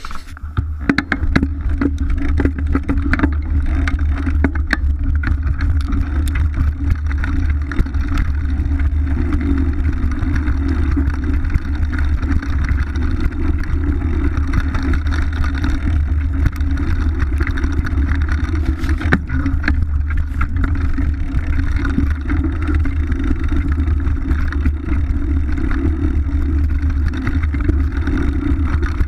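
Mountain bike descending a rough forest trail, heard through the rider's action camera: a steady wind rumble on the microphone with constant rattling and knocks from the bike over the rough ground.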